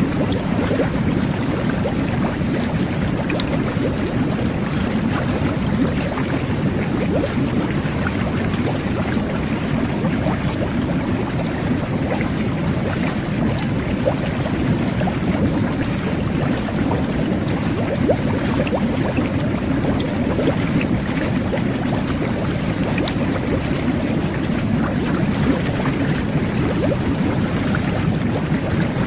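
Jet bath running: water jets churning and bubbling through bathwater in a steady, even rush with small scattered pops.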